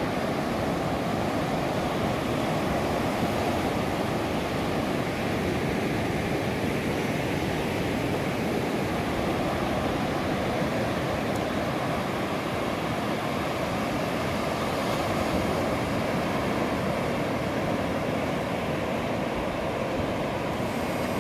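Sea surf: low waves breaking and washing up over wet sand, a steady rushing noise with no letup.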